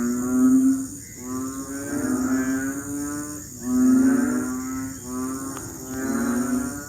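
A chorus of frogs at a rainy-season breeding chorus, giving low, mooing calls about a second long, one after another and overlapping, over a steady high-pitched hiss.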